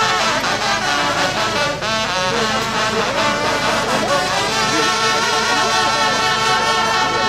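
An ensemble of French hunting horns (trompes de chasse) playing together, several horns sounding at once. The notes move quickly at first and are held longer from about four seconds in.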